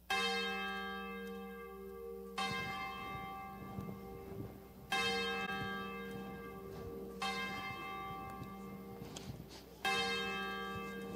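Church bells tolling before the service begins: five strokes about two and a half seconds apart, alternating between two pitches, each ringing on and fading before the next.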